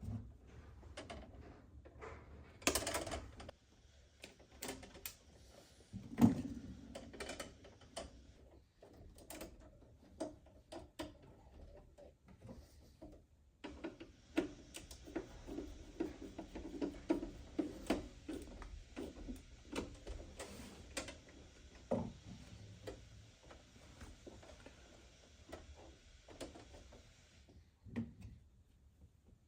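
Scattered clicks, taps and rustles of a neutral wire being routed and landed on the neutral bar of an electrical breaker panel, with a faint steady hiss through the middle stretch.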